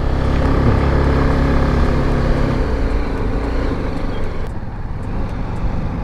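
BMW G310GS motorcycle's single-cylinder engine running while riding, heard with road rumble. The steady engine note fades about two and a half seconds in as the bike eases off toward a junction.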